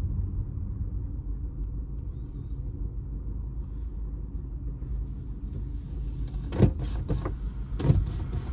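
Opel Astra H driving, a steady low rumble of engine and road noise, with a few sharp knocks near the end.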